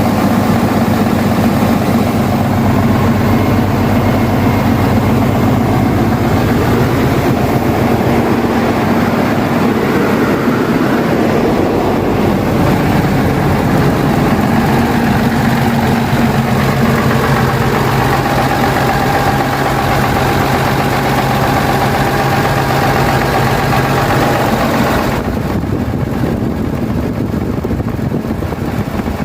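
Diesel engine of an Alfa Romeo FNM truck running steadily with a deep, even sound. Near the end the sound changes abruptly and becomes duller.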